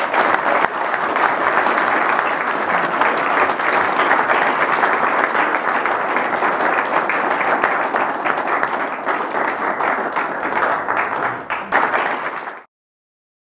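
A roomful of people applauding, a steady dense clatter of many hands clapping that cuts off suddenly shortly before the end.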